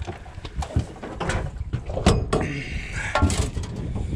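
A few sharp knocks and clunks on an aluminium boat over a low, steady rumble.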